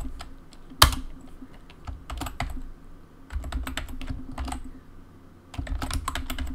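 Typing on a computer keyboard to enter a new password: short runs of keystroke clicks with pauses between them, and one sharper key strike about a second in.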